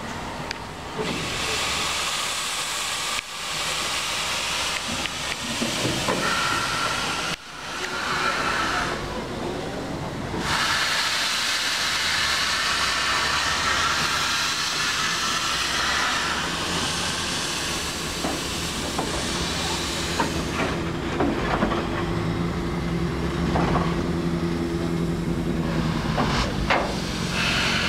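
Steam locomotive hissing as it lets off steam, in long bursts that cut off suddenly twice in the first few seconds before settling into a continuous hiss. A low steady hum joins in about twenty seconds in.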